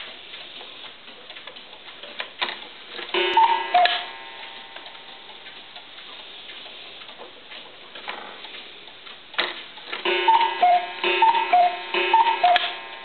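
A one-day Oktoberfest cuckoo clock ticking. A mechanical clatter comes about two and a half seconds in, then one cuckoo call. After another clatter near the nine-second mark come three cuckoo calls in a row, each a higher note falling to a lower one, as the clock strikes.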